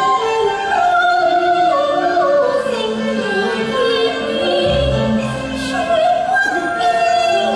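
Cantonese opera music: a sustained melodic line that slides slowly up and down over the accompanying ensemble, with a short low thud about five seconds in.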